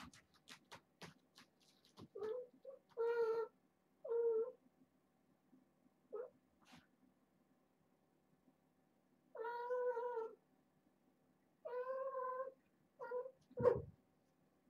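Kittens meowing: about eight short, high meows, one of them about a second long midway. There are light clicks in the first two seconds and a soft thump near the end.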